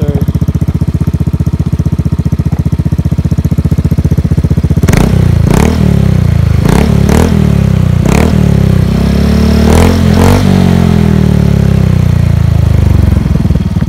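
Motor scooter's engine running through an aftermarket Organ Sport chicken pipe exhaust, its stock pipe cut and joined on. It idles with a steady, even pulse, then from about five seconds in it is blipped on the throttle about eight times in quick rises and falls, spinning the rear wheel off the ground, before settling back down near the end.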